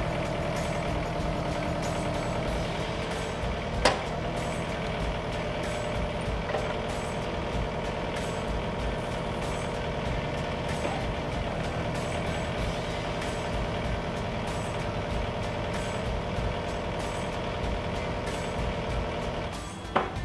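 Yanmar SV40 mini excavator's diesel engine running steadily with a steady whine over it while the new hydraulic thumb is cycled to push air out of its lines. There is a single sharp click about four seconds in and another near the end.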